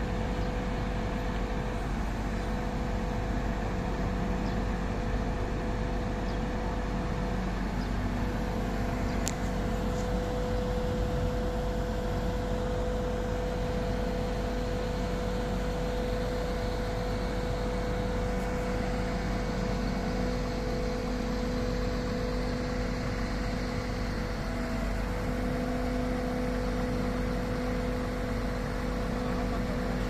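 Diesel engine of a MAN truck carrying a Schwing Stetter concrete pump running steadily to power the hydraulics as the pump's boom is raised and unfolded: a steady engine hum whose pitch shifts slightly now and then.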